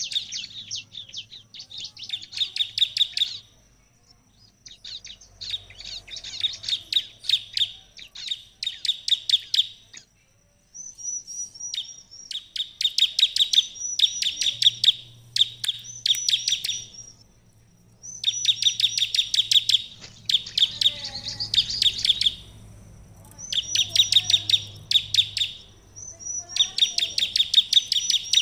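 Bar-winged prinia (ciblek) singing hard: phrases of a few seconds of rapid, sharp trilled notes, broken by short pauses in which a thin, high note repeats.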